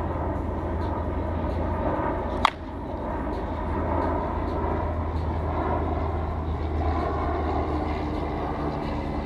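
Monsta Zombie slowpitch softball bat striking a 44-core softball once about two and a half seconds in: a single sharp crack, over a steady low outdoor rumble.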